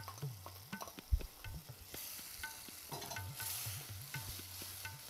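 A utensil stirring and scraping in a karai, tapping against the pan again and again, while boiled red kidney beans fry in spiced oil with a sizzle that grows stronger about halfway through.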